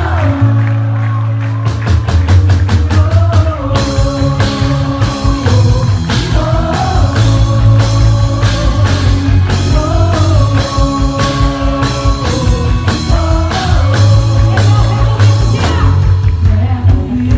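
Live worship band playing a Portuguese-language Christian worship song: a sung lead vocal over bass, guitar and a drum kit. The drums come in about two seconds in and build to a full beat.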